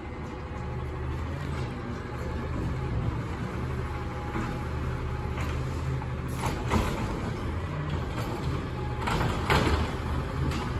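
Peterbilt 320 automated side-loader garbage truck idling steadily while its hydraulic arm lifts a cart, with loud clattering knocks about six and a half seconds in and again around nine to ten seconds as the cart is handled and dumped.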